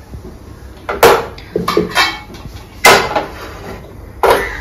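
Metal pots being handled and an aluminium pressure cooker set down on a gas stove's burner grate: three sharp clanks with brief ringing, and a couple of lighter clinks between the first two.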